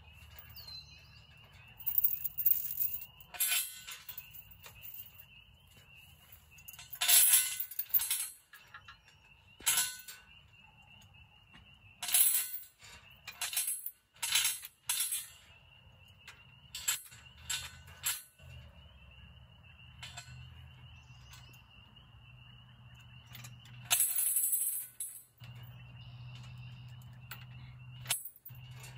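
Irregular metallic clanks, clinks and rattles of hand tools and steel parts as an International Harvester C-21 sickle bar mower is bolted onto a Farmall Super C tractor. The loudest clatters come about a quarter of the way in and again near the end.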